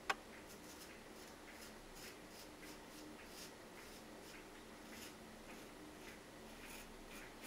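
Straight razor scraping through lathered stubble on the first pass: faint, crisp rasps in short strokes repeated irregularly. A single sharp click sounds right at the start.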